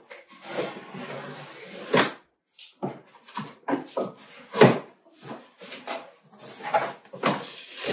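Box cutter slitting the packing tape on a cardboard box: a rasping hiss for about two seconds that ends in a sharp snap. Then a string of knocks and scrapes as the cardboard flaps are handled and pushed open.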